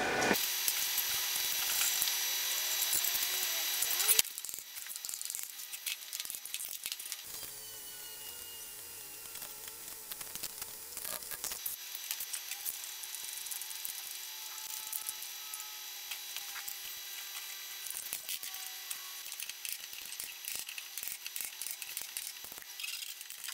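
A small electric motor being taken apart with a cordless drill-driver and hand tools: a steady whirring spell for the first few seconds, then scattered clicks, taps and knocks of metal parts.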